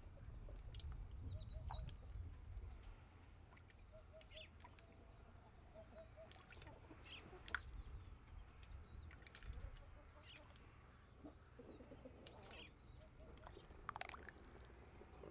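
Near silence: faint outdoor ambience with a low rumble and scattered distant bird chirps and calls, plus a few faint clicks, the clearest near the end.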